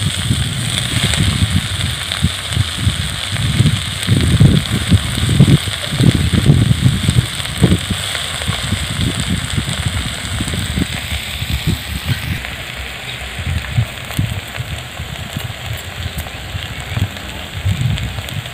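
Amaranth leaves sizzling in hot mustard oil in a steel karahi over an open twig-and-straw fire, with crackling. An uneven low rumble, loudest in the first half, sounds like wind on the microphone.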